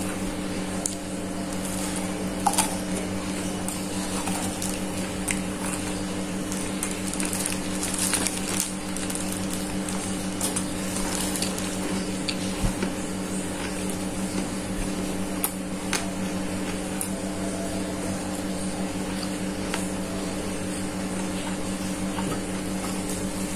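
Close-up chewing of crispy fried chicken: small crunches, clicks and mouth smacks, a few sharper, over a steady hum.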